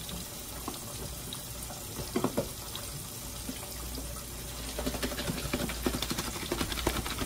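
Lidded plastic container being shaken hard, the food inside rattling and thumping against its walls in a quick run of knocks from about four and a half seconds in, with a few knocks about two seconds in, over a steady hiss. It is pork chops being shaken to coat them in flour.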